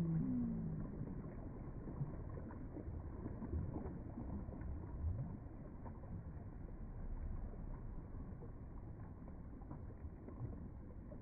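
Low, steady rumble of sea and wind at the shore, with no single distinct event standing out.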